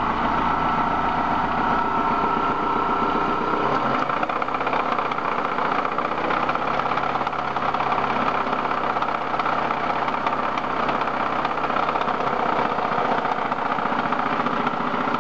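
BMW M42 1.8-litre four-cylinder twin-cam engine running at idle with a loud, fast, steady knocking. The low hum shifts about four seconds in.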